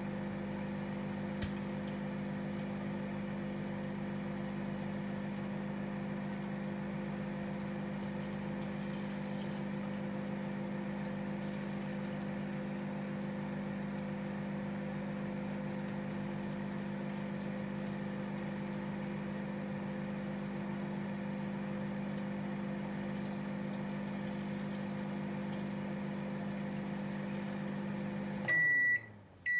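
Microwave oven running with a steady hum while it cooks fish, then shutting off near the end and giving a few short high beeps to signal the cooking cycle is finished.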